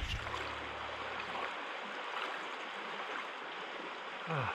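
Shallow mountain creek flowing over rocks, a steady rushing of water. Just before the end a person lets out a short, falling groan.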